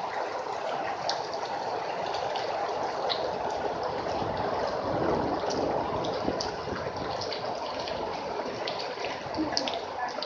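Steady rain falling, with scattered drops ticking sharply here and there.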